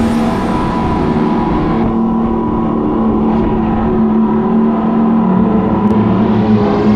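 Electric go-kart playing its simulated race-car engine sound while driving, a steady engine-like drone.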